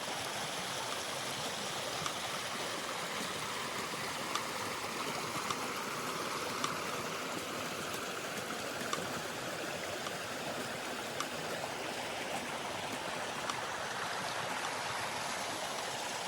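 Rushing water: a steady, unbroken hiss of flowing water, with a few faint clicks over it.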